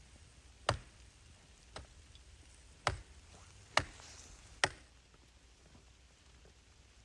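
Five sharp knocks, roughly a second apart, with a brief faint hiss between the last two.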